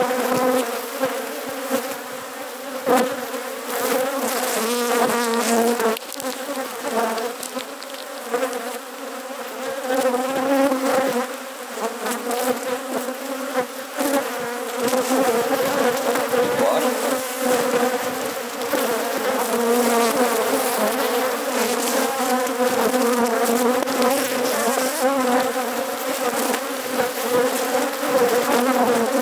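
Dense, steady buzzing hum of a large honeybee colony swarming around an opened hive while it is being worked.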